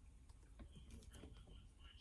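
Faint, scattered small clicks and taps of metal tools working in a Paclock 90A Pro padlock as its core is turned and pushed out, over a low steady hum.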